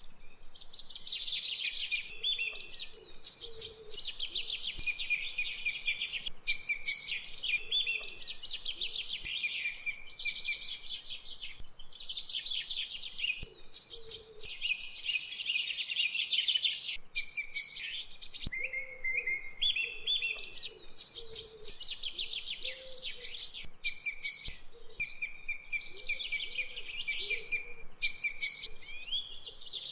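Birds chirping and trilling in dense, overlapping high-pitched phrases with hardly a pause.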